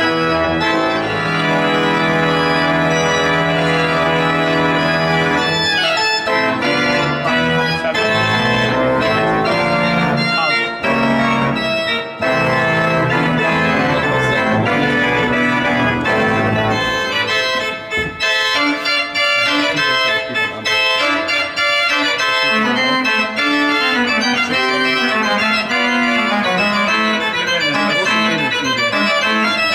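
Pipe organ played loudly, with full chords and quick-changing runs of notes over held bass notes.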